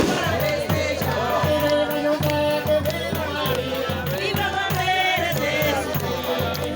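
A group of voices singing a traditional São João folk hymn together over an evenly repeating low beat.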